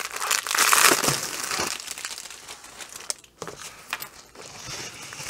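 Clear plastic wrapping and a rolled diamond-painting canvas crinkling as hands handle and unroll it. The crinkling is loudest about a second in, then thins out into scattered small rustles and clicks.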